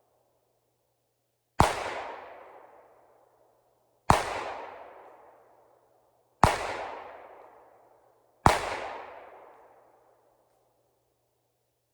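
Four gunshots about two seconds apart, each sharp crack trailing off in a long echoing decay, with a faint low hum between them.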